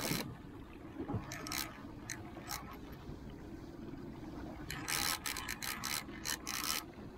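Conventional fishing reel being cranked to bring in a hooked fish: its gears turn with a rasping whir and scattered clicks, which come thick and fast about five to seven seconds in.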